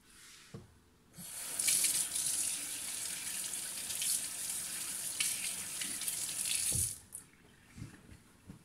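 Kitchen tap running into a sink for about six seconds, then shut off, with a soft knock as it stops.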